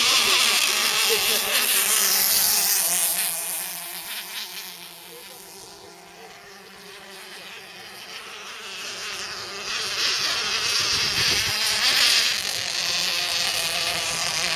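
High-pitched buzzing whine of nitro-engined RC racing boats at full throttle. It fades away for several seconds near the middle as the boat runs off across the water, then grows loud again from about ten seconds in as it comes back.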